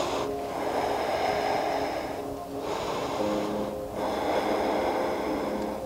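A person breathing slowly and audibly, about three long breaths, over soft background music with long held notes that change about three seconds in.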